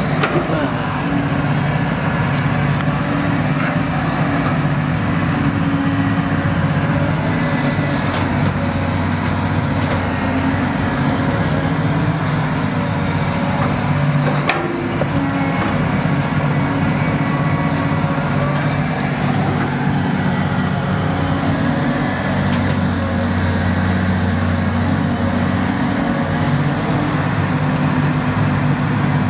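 Tracked hydraulic excavator's diesel engine running steadily under load while it digs with the bucket, with a single sharp knock about halfway through.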